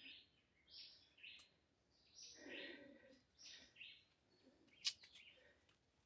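Faint bird chirps, short high calls repeating about twice a second, with one sharp click about five seconds in.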